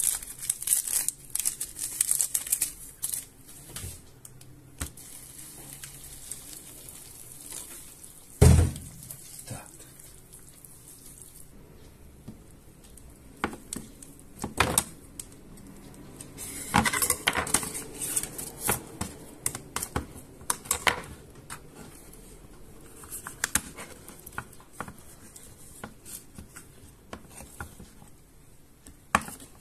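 Table-top handling noises: a seasoning sachet rustling, a single loud knock about eight seconds in, then clicks and crackly scraping as the ring-pull lid of a tin of mackerel is lifted and peeled back.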